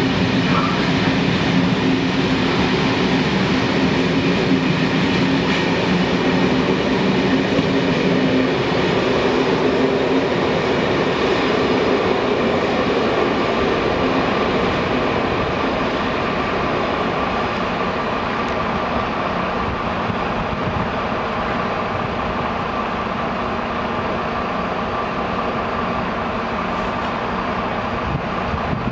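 Passenger train coaches rolling past on the rails as the express train pulls out of the station: a continuous rumble of wheels on track that eases off a little in the second half as the last coach moves away.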